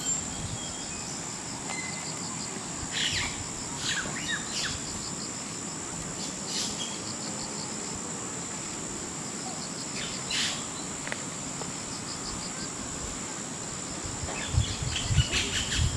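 A steady, high-pitched insect trill, cricket-like, runs throughout, with a few short bird chirps scattered through it. Some low, uneven sounds come in near the end.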